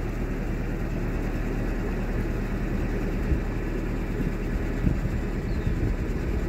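Narrowboat engine running steadily under way, a low even rumble.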